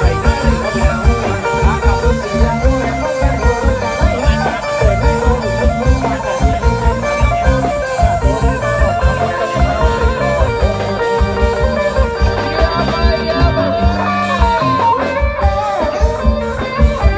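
Upbeat band music for dancing: a steady, driving drum beat under bass and electric guitar lead lines that bend in pitch.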